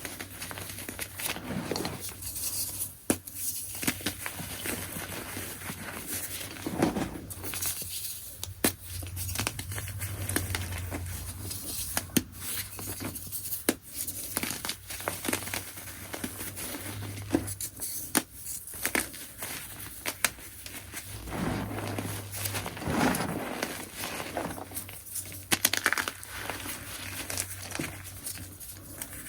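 Chunks of gym chalk being crushed, a continuous crunching and crumbling with many sharp little cracks as the soft and crunchy pieces break up.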